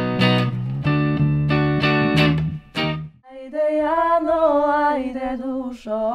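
Bass and electric guitar playing chords, stopping about halfway through. After a short pause, a single voice starts singing a slow melody with long held notes and no accompaniment.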